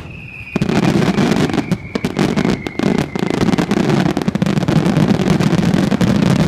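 Fireworks display: a dense, rapid barrage of bursts and crackling starts about half a second in and carries on, with a thin whistle gently falling in pitch over the first few seconds.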